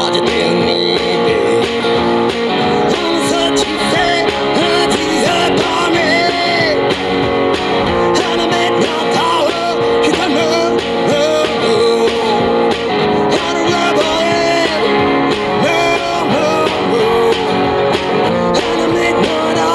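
One-man-band busker playing a rock cover: strummed guitar with a foot-played kick drum and cymbal, and a sung vocal line over it.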